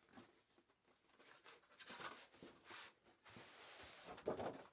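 Faint rustling and scraping of cardboard packaging as a keyboard is worked out of its opened box, with soft knocks and a louder rustle near the end.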